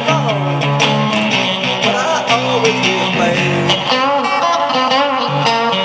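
Squier Stratocaster-style electric guitar strumming chords in a steady rhythm.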